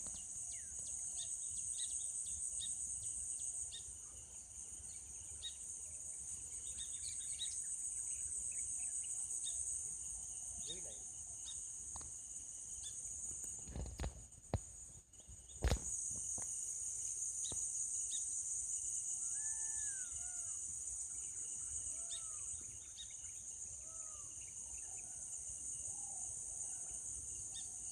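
Steady high-pitched insect chorus that fades out for a moment around the middle, with faint scattered chirps and short calls of small birds over it. Two sharp knocks come midway.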